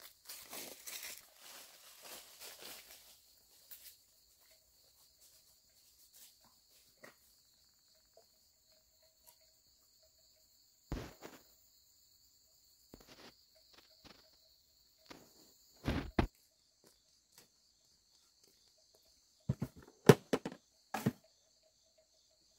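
Steady high insect chirring, with rustling like footsteps in the first few seconds and a few scattered knocks or thumps, the loudest about twenty seconds in.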